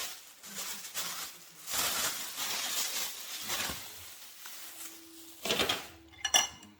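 Plastic wrapping rustling and crinkling in bursts as leftover meat is packed away, with a couple of sharp crackles near the end.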